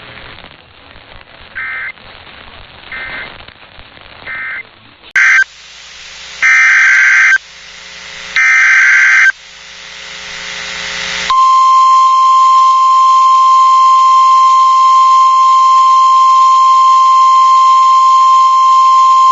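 Emergency alert data tones: three short end-of-message bursts closing the previous warning, then, after a cut to clearer audio, three SAME header bursts of about a second each that announce a new alert. From a little over halfway through, the NOAA Weather Radio 1050 Hz warning alarm tone sounds as one steady, loud tone.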